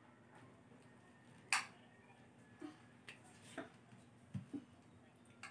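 Scattered light clicks and taps of a fork and plastic food containers against plates as food is served, about six in all, the sharpest about a second and a half in.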